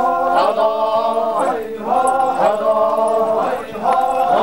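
Sümi Naga war dancers chanting together in a war-dance chant: a short held call from many voices, repeated about once a second, each phrase sliding into the next.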